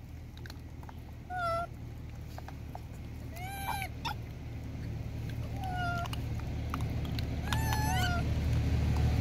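Young rhesus macaques crying: about four short, high, wavering calls a second or two apart, over a low rumble that grows louder toward the end.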